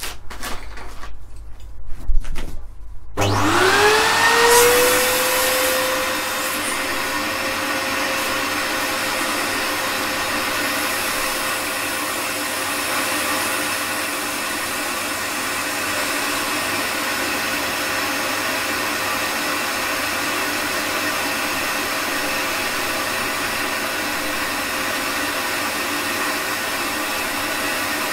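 A few sharp knocks, then about three seconds in a vacuum cleaner switches on. Its motor whine rises in pitch and settles into a steady run as the hose draws the air out of a vacuum storage bag through its valve.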